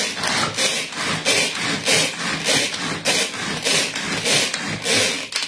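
Manual pull-cord food chopper chopping dried cranberries: a rapid, rasping series of strokes, about three a second, as the cord is pulled again and again. It stops abruptly near the end.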